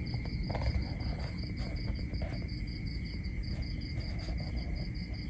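Crickets chirring at night: a high trill pulsing fast and evenly, with a second steady, lower insect tone alongside, over a low rumble.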